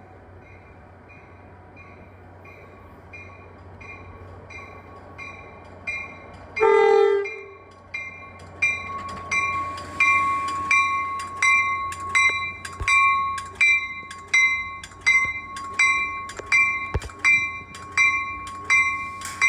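NJ Transit train sounding one short horn blast about six and a half seconds in. A bell rings in even strokes throughout: faint at first, then loud at about two strokes a second after the horn.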